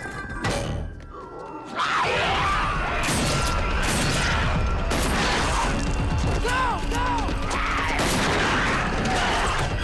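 Film soundtrack: music under a loud, dense din of heavy thuds and crashes that swells up about two seconds in.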